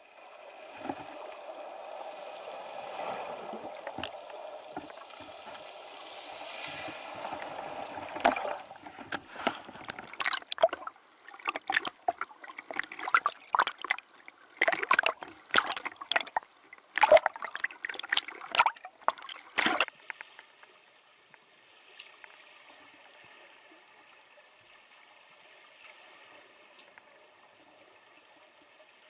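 Water sloshing and gurgling, with a run of sharp, irregular splashes through the middle before it settles to a faint, steady wash.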